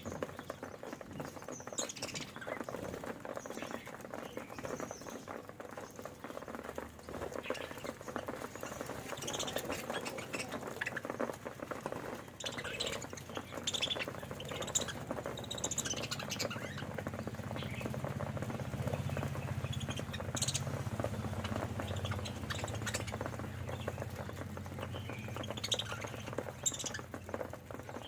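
Budgerigars chirping in short, scattered calls over a steady fine crackle of pecking and seed-husking at a grain tray. A low hum comes in about halfway through and fades near the end.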